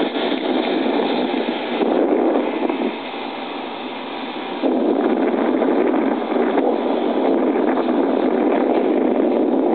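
Steady wind rushing over the microphone high up under a parasail. It drops off for about a second and a half around three seconds in, then comes back.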